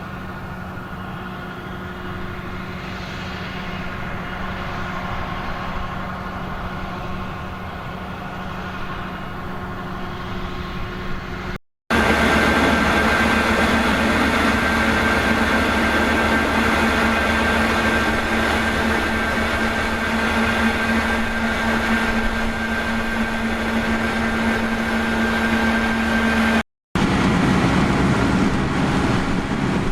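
Heavy harvest machinery running steadily, a low engine drone with a steady whine over it. The sound drops out twice, briefly, about twelve and twenty-seven seconds in, and is louder after the first break.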